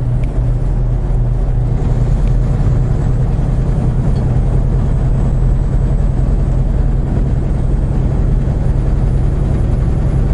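Semi truck's diesel engine and road noise at highway speed, heard from inside the cab as a steady, even low drone.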